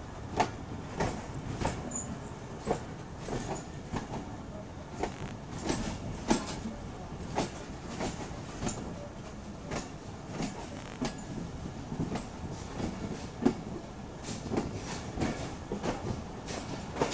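Passenger train coach rolling along the track, its wheels clacking at an uneven pace of about two clicks a second over a steady low rumble.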